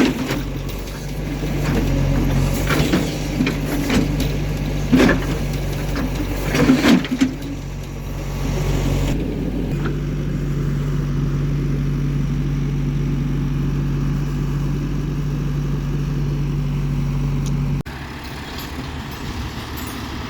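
Heavy diesel engine running steadily. Several sharp knocks and clanks come in the first few seconds. The sound shifts abruptly about nine seconds in and again near the end.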